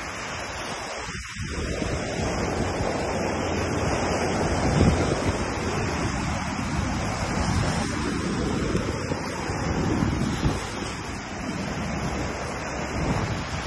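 Sea surf washing onto a sandy beach, with wind buffeting the microphone.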